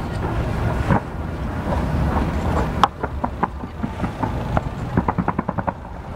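Fireworks going off over a low rumble: a couple of sharp bangs in the first half, then a rapid run of crackling pops in the last few seconds.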